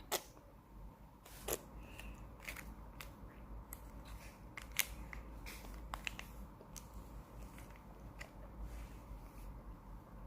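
Jelly candy being bitten and chewed, with a series of sharp clicks and snaps, the loudest at the start, about a second and a half in, and just under five seconds in.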